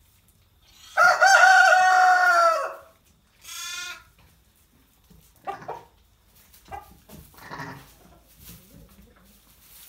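Farm animal calls: a long, loud pitched call that falls away at its end, then a shorter, quavering sheep bleat, followed by softer scattered calls and shuffling.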